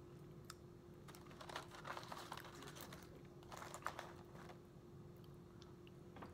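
Faint scattered light clicks and crinkles of nacho chips being picked over in a takeout container, over a faint steady hum.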